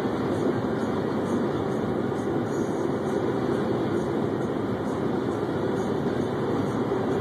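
Steady road and engine noise inside a car's cabin while cruising at highway speed.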